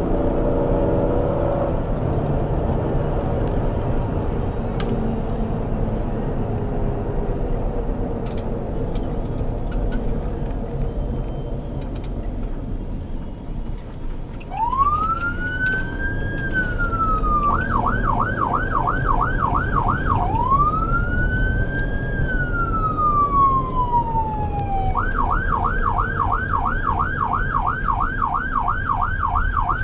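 Vehicle engine and road rumble. About halfway through, an emergency vehicle's electronic siren switches on: a slow rising-and-falling wail, a fast yelp of about three warbles a second, a second wail, then the yelp again to the end.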